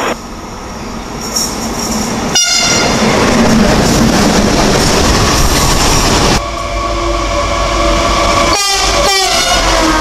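Trains passing close at speed with loud rumble and wheel noise. After a sudden cut about six seconds in, a freight locomotive's horn sounds a steady chord of several tones over the clatter of passing wagons, broken by two brief gaps near the end.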